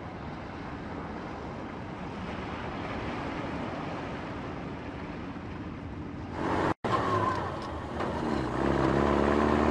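DUKW amphibious truck driving: a steady vehicle noise, then after a brief cut about seven seconds in, the engine running louder with a steady pitch that rises for a moment.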